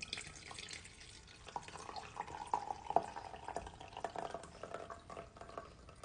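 Tea pouring in a thin stream from a glass French press into a ceramic mug, a steady trickle and splash of liquid filling the mug.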